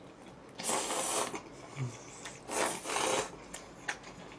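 Two noisy slurps of black-bean instant noodles being sucked in, each under a second long.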